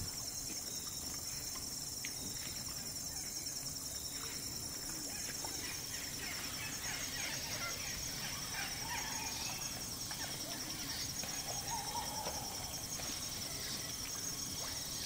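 Rainforest insects keep up a steady, high, rapidly pulsing chorus, over scattered soft clicks and wet smacks that grow more frequent after about six seconds: Sulawesi babirusas rooting and chewing in wet mud.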